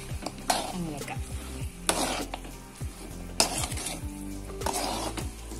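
Spatula stirring and turning chicken pieces in masala in a hot pan, the food sizzling, with a scraping stroke about every second and a half.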